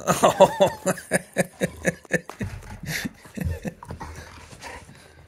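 A person laughing in quick pulses that fade out after about three seconds, with scattered knocks and scuffles from dogs playing against a bed.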